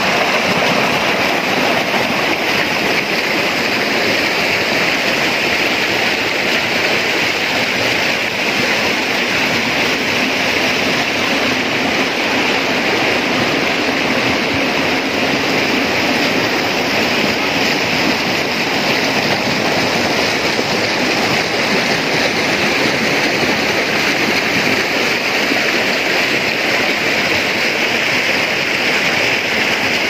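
Water of a rocky forest stream rushing and pouring over rocks and small cascades, a steady, unbroken rush.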